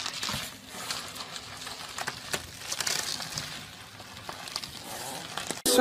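Plastic bubble wrap rustling and crinkling as a small dog squirms inside a sleeve of it, with many small scattered clicks.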